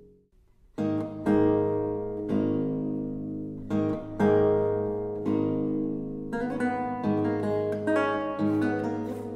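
Solo theorbo: after a brief silence, plucked notes and chords ring out over a sustained low bass note. From about six seconds in, the notes come faster and more evenly.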